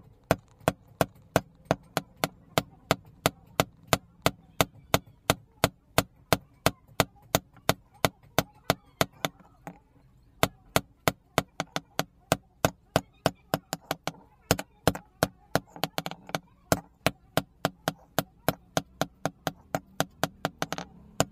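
A hand hammer strikes a red-hot steel axe head on an anvil in quick, steady blows, about three a second, as the damaged blade is forged back into shape. The blows pause briefly about ten seconds in and again about fourteen seconds in.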